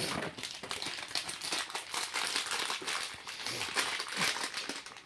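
Crinkling and tearing of a toy wrapper being opened by hand: irregular crackles with no break.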